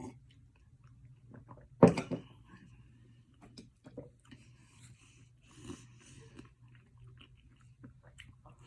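Quiet chewing and mouth noises from eating pizza and cheesy bread, with small clicks scattered through. About two seconds in there is one sharp knock, the loudest sound, over a low steady hum.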